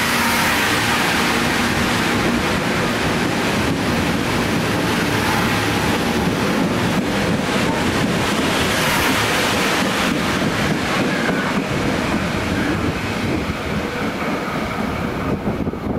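Metro-North commuter train departing and passing close by: a steady rush of wheel and car noise with faint rail clicks, thinning out near the end as the last cars move away.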